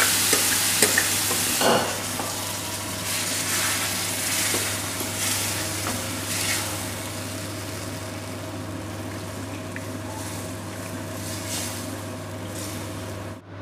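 Cooked dal poured into a hot aluminium kadai of fried onion-tomato masala, sizzling loudly at first with a few knocks of the pot and spatula on the pan in the first two seconds, then sizzling more softly as it is stirred with a spatula. A steady low hum runs underneath.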